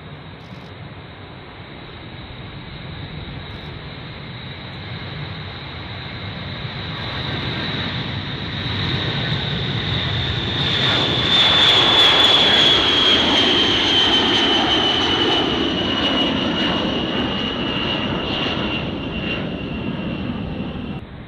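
B-52H Stratofortress's eight TF33 turbofan engines at high power as the bomber rolls fast down the runway and passes. The sound builds to a peak about halfway through, then eases off. A high turbine whine falls slowly in pitch after the peak.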